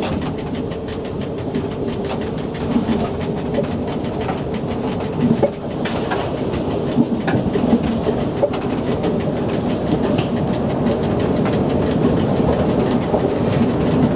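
SNCF Z 5300 electric multiple unit running along the track, heard from inside its driver's cab: a steady noise of wheels on rail with continual light clicks and rattles.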